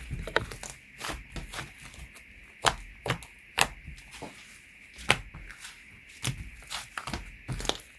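Slime being squished, stretched and poked by hand, giving irregular sticky clicks and pops. A few of the pops are louder, about two and a half, three and a half and five seconds in.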